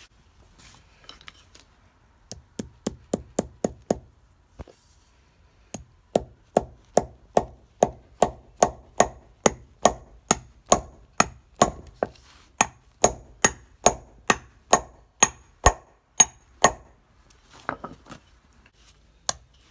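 Hammer striking repeatedly, each blow with a short high ring: a quick run of about eight taps, a short pause, then a steady series of about two blows a second that thins to a few softer taps near the end.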